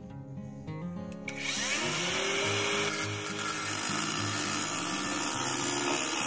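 Cordless drill starting about a second in and boring into a wooden beam: its whine rises as it spins up, then it runs steadily under load. Background music plays underneath.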